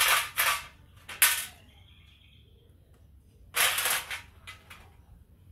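Short bursts of metallic clatter from a motorcycle drive chain being handled while its master-link lock is taken off: three of them, at the start, about a second in, and again past the middle.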